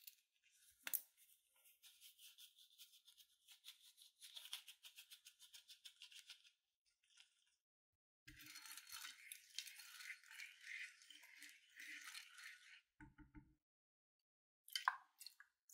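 Soft, quick rattling strokes, then about four seconds of soft, steady hissing as fine gold glitter is sprinkled over slime in a plastic tray; a few light clicks near the end.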